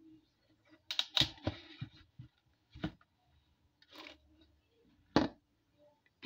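A knife cutting into a raw butternut squash held in a plastic basin: a series of short crunching cuts and knocks, the loudest cluster about a second in and a sharp single knock about five seconds in.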